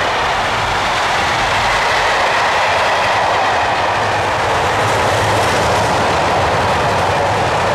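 Train running along the track: a steady, loud noise of wheels on rail.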